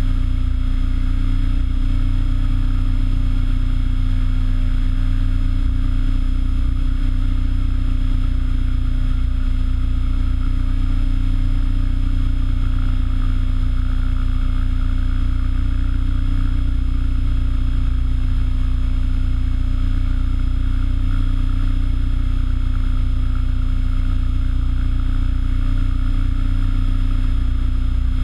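Align T-Rex 800E electric RC helicopter hovering steadily, heard close from the camera mounted on it: a loud, even rotor rumble with steady high tones from the drive, holding constant throughout.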